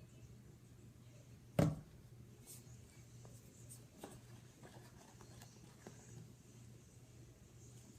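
Faint scraping and tapping of a stick stirring a thick glue slime mixture in a bowl, with one sharp knock about one and a half seconds in.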